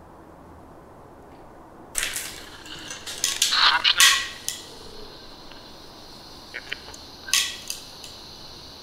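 Handling noise from a small handheld voice recorder held right at the camera microphone: sudden rustles, knocks and bursts of hiss beginning about two seconds in, loudest around four seconds, with a few clicks and another burst later. Before that there is only a faint steady hiss.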